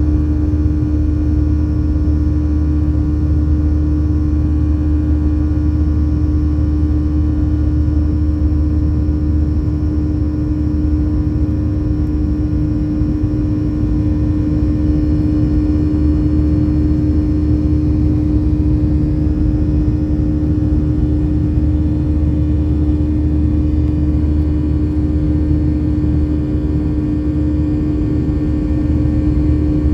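Boeing 737-800's CFM56 turbofan engines heard from inside the passenger cabin: a steady drone with one strong humming tone over a low rumble, unchanging in pitch and level.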